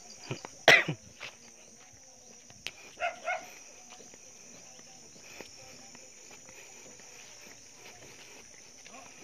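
Steady high-pitched insect drone in grassland, broken by a few short animal calls: a loud one about a second in and two close together around three seconds in.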